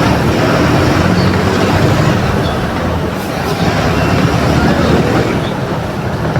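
Mercedes-Benz OF 1721 BlueTec 5 bus's diesel engine running as the bus travels. A steady low rumble throughout.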